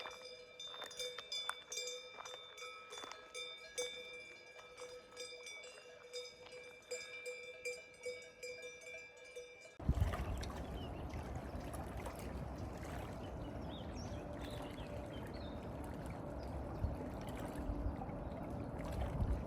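Cowbells ringing and clanking with a steady jangle. About ten seconds in they cut off abruptly to a steady rushing noise with a deep rumble.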